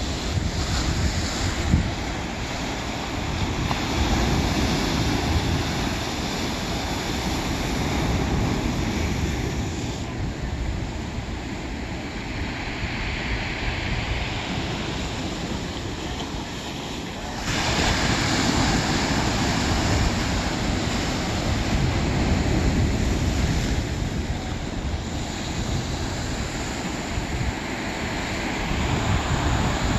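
Ocean surf breaking and washing over shoreline boulders: a continuous rushing that swells and eases with each wave, with a louder surge a little over halfway through.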